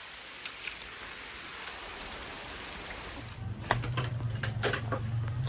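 Heavy rain falling, a steady hiss. About three seconds in, a low steady hum and a few sharp clicks join it.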